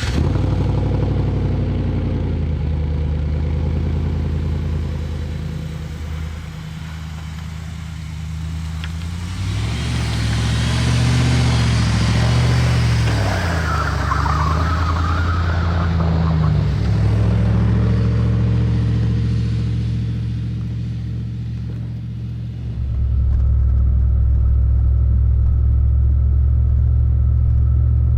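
Pickup truck engine running just after starting, with a steady low drone. Around the middle its pitch rises and falls with a rushing hiss on top, and about 23 s in it steps up to a louder, steady drone.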